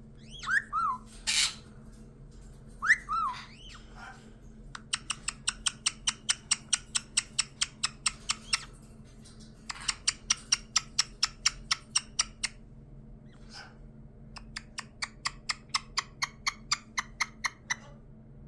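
White-bellied caique parrot calling: two short whistled notes that slide up and down and a harsh squawk, then three long runs of rapid repeated chirps at about five a second.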